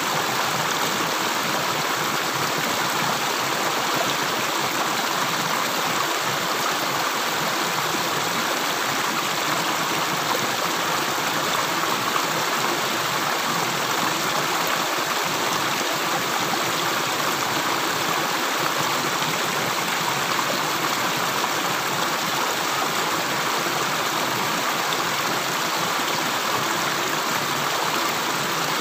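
Water running in a steady, even rush, with no separate drips.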